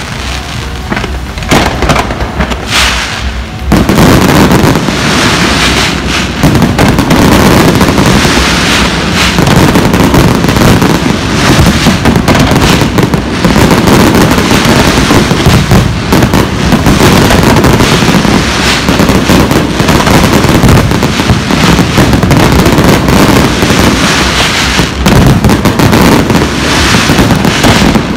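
Fireworks display going off in a dense, unbroken barrage of bangs and crackles. It starts more sparsely and builds sharply about four seconds in, then stays loud.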